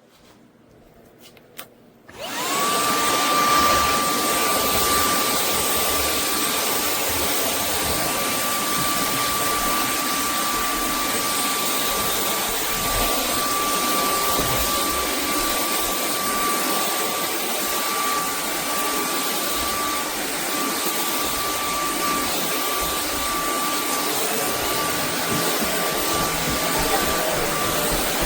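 Shark Clean & Empty cordless stick vacuum switched on about two seconds in, its motor spinning up to a steady high whine over a constant rush of air as it runs.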